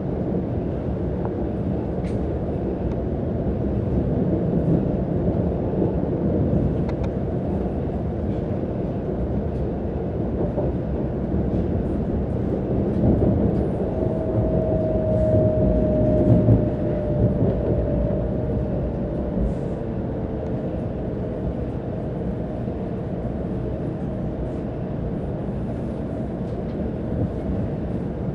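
Steady low rumble of a Kyushu Shinkansen train heard from inside the passenger cabin, on the approach to a station stop. About halfway through, a thin high tone rises above the rumble and slides slightly lower over several seconds.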